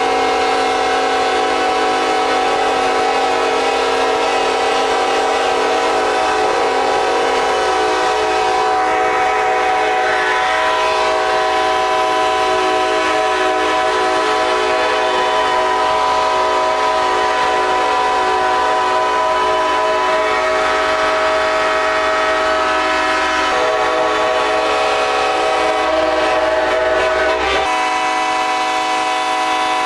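Several locomotive air horns blowing together in one long overlapping chord. The mix of tones shifts a few times as horns start and stop, about eight seconds in and again near the end.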